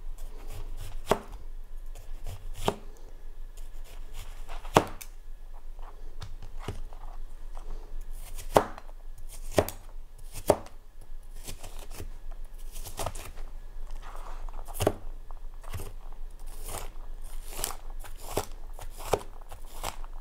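Chef's knife slicing and dicing an onion on a thin plastic cutting mat: irregular knocks of the blade on the board, a few of them sharp and loud, coming closer together into steady chopping near the end.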